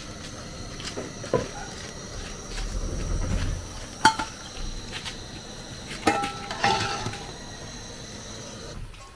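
Aluminium cookware clanking: a few sharp metallic knocks with brief ringing, about four seconds in and twice more around six to seven seconds, as a colander and pot are handled over a steady faint high whine.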